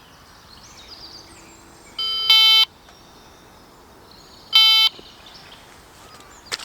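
Electronic carp-fishing bite alarm beeping twice, with the first beep longer than the second. Faint birdsong is in the background.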